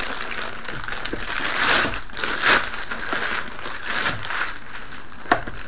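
Clear plastic bag crinkling and rustling in uneven swells as a UPS unit is worked out of it by hand, with a short knock near the end.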